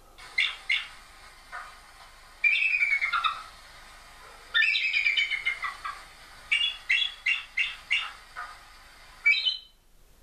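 Eagle calling: several runs of quick high notes, some sliding down in pitch, that stop suddenly near the end.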